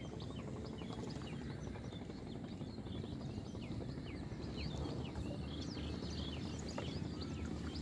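Small birds chirping, many short quick calls, over a steady low outdoor background noise.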